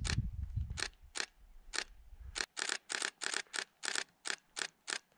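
Camera shutter firing over and over, single frames at first, then a rapid burst of about six frames a second from about two and a half seconds in. A low rumble on the microphone underlies the first half and stops suddenly as the burst begins.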